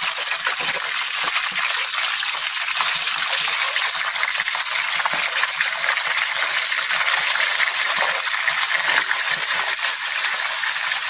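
Tilapia pieces and chopped garlic sizzling in hot cooking oil in a metal pan: a steady, dense hiss. The fish has only just gone into the oil.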